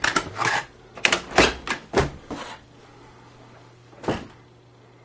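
Doors of an RV's four-door refrigerator being pulled open one after another: a quick run of clicks and knocks over the first two and a half seconds, then one more about four seconds in.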